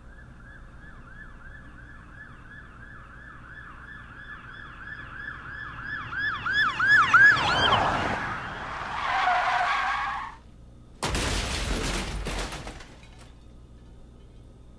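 Emergency vehicle siren cycling quickly, about three sweeps a second, growing louder and then dropping in pitch as it passes by. A loud rushing noise follows about eleven seconds in and cuts off sharply after about two seconds.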